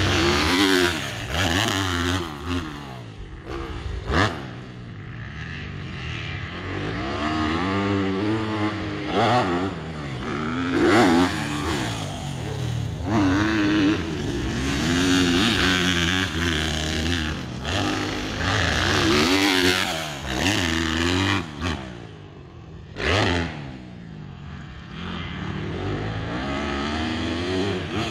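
Yamaha YZ250F four-stroke single-cylinder motocross bike revving hard and backing off again and again as it rides the jumps and berms, its pitch climbing and dropping every second or two. There are two sharp knocks, about four seconds in and again about twenty-three seconds in.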